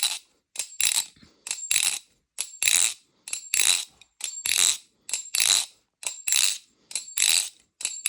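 Balisong (butterfly knife) being flipped at a slow, steady pace, its handles clacking and rattling on the pivots about once a second, each flip a short click then a longer metallic rattle with a faint ring.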